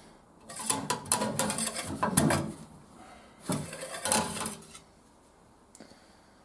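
Metal dipstick rattling and scraping as it is drawn out of and pushed back into its tube on the stopped 200Tdi diesel, checking the oil level after a refill. Two bouts of clatter, the second shorter, about three and a half seconds in.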